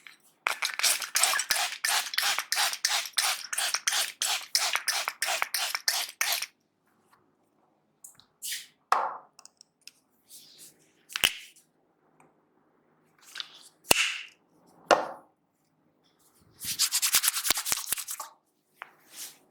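Rapid rhythmic hand tapping of an Indian head massage, about three strokes a second for several seconds. Then a few scattered sharp clicks and short sounds, and a second quick burst of tapping near the end.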